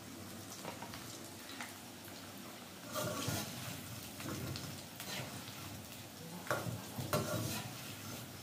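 Battered food frying in hot oil in a wok, a steady sizzle, while a slotted metal spatula stirs through it, scraping the wok several times.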